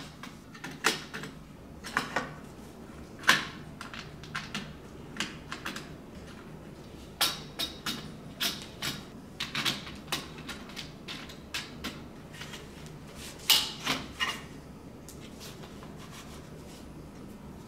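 Aluminium LED light bars and frame of a grow light being handled and fitted into plastic brackets: irregular clicks, clacks and knocks of metal and plastic parts, busiest in the middle stretch and sparser near the end.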